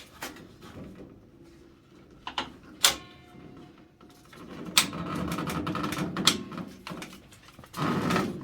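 A heavy water heater being hauled: scraping and rumbling, with several sharp knocks as it bumps along.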